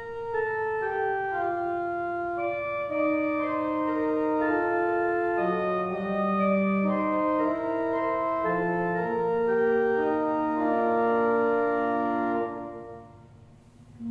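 Church organ played in slow, sustained chords, several parts moving together in steady steps. The playing ends about 12.5 seconds in and dies away.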